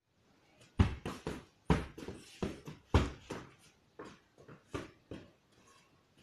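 Boxing gloves hitting a hanging heavy bag in quick combinations of two or three punches. The hardest blows land at about one, two and three seconds in, and lighter punches follow in the second half.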